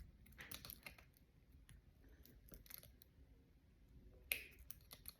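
Faint small metal clicks and taps of pliers gripping and turning a watch's screw-down crown, with a sharper click about four seconds in.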